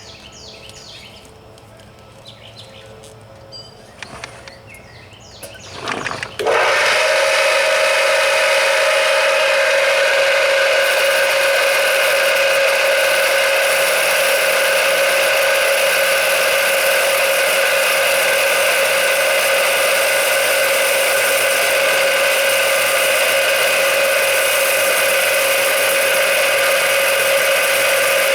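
A few light knocks and handling clicks, then an electric wet saw with a diamond blade switches on about six seconds in, its motor spinning up quickly, and runs with a loud, steady whine.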